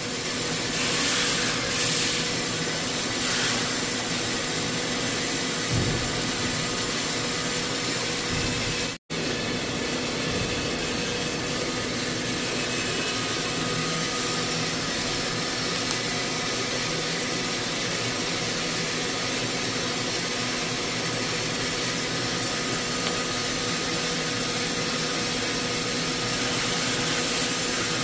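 CNC machining centre milling steel: the spindle and cutter give a steady whine over a constant hiss of cutting. The sound cuts out for an instant about nine seconds in.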